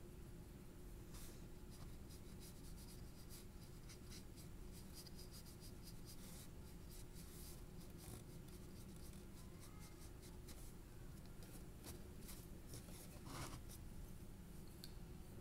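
Faint, irregular scratching of a pencil tip shading across drawing paper in short strokes, over a low steady hum.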